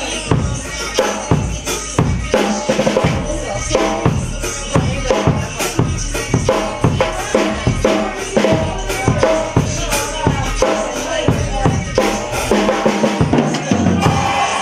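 Drum kit played in a steady beat, bass drum and snare to the fore, with other music under it.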